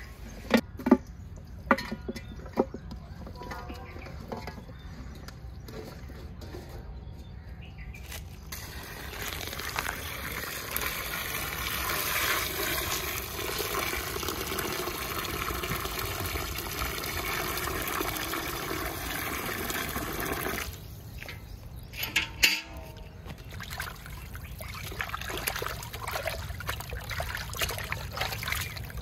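Water pouring in a steady stream into an aluminium pot of raw chicken pieces, starting about a third of the way in and stopping suddenly some twelve seconds later. A few knocks come early on as the chicken goes into the pot, and near the end hands slosh the chicken pieces around in the water to wash them.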